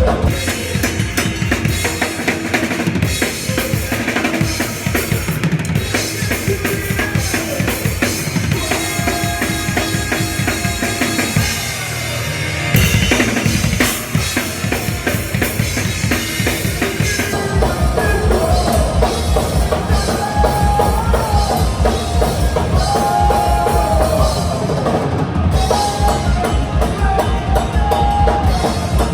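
Punk rock band playing live through a bar's PA: a loud drum kit with bass drum and snare over amplified instruments. The arrangement shifts about 13 seconds in, then settles into a steady driving beat.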